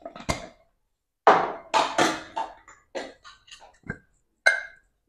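Kitchen handling sounds as a spoon and spice containers are used between spice additions: a string of light taps, knocks and short scrapes. A short metallic clink rings briefly near the end.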